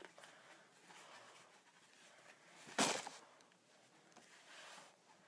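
Quiet room with faint handling and rustling sounds, and one short, louder burst of handling noise about three seconds in.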